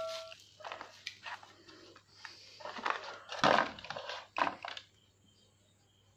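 Crinkling and rustling of a clear plastic blister pack and cable as a USB video capture adapter is handled and lifted out, in irregular bursts that stop about five seconds in. The tail of a ringing chime fades out at the very start.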